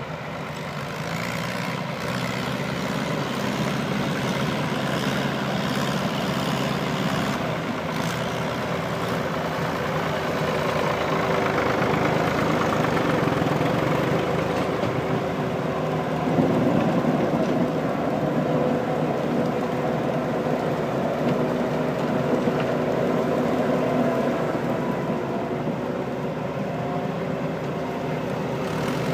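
Engine of a prune harvesting machine running steadily, briefly louder about sixteen seconds in.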